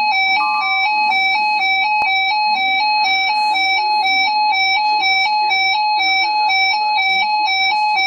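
Weather radio receiver's alert alarm: a loud electronic beep stepping back and forth between two pitches about twice a second, sounding the incoming tornado watch alert.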